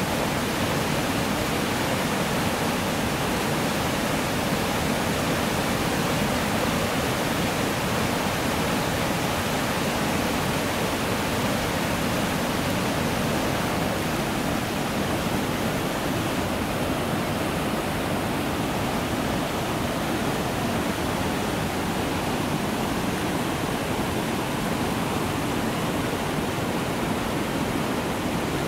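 Fast-flowing creek water rushing over rocks: a steady, even rush that does not change.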